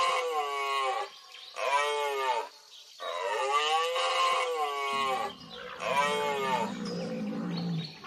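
Animal call sound effect played as a rhinoceros: four drawn-out, pitched bellowing calls in a long-short-long-short pattern, each rising and then falling in pitch.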